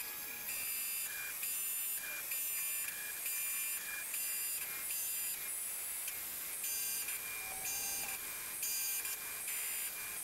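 Vevor 7x14 mini lathe turning a steel bar with a hand-fed cutting tool: a high-pitched whine and squeal from the cut that shifts in pitch and strength every half second or so.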